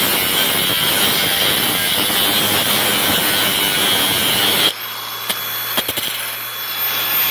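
Makita XAG03 18V brushless cordless angle grinder cutting through rebar, a loud steady grinding. About two-thirds of the way in the wheel comes free of the steel and the grinder runs on unloaded with a clean high whine, and a couple of sharp clicks follow.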